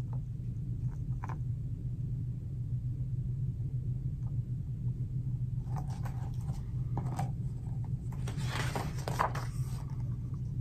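Paper rustling and light handling clicks as a hardcover picture book is held up and a page is turned, the rustling mostly in the second half, over a steady low hum.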